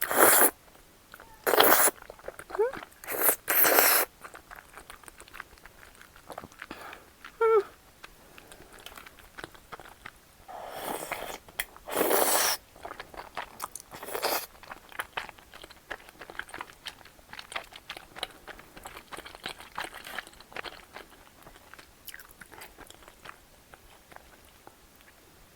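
Crunching and chewing sounds of eating: several loud crunching bursts in the first half, then a long run of small crackly clicks and bites.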